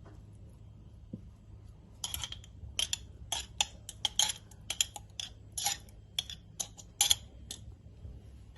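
Kitchen utensils clinking against a dish in an irregular run of short, light clatters, starting about two seconds in and stopping shortly before the end.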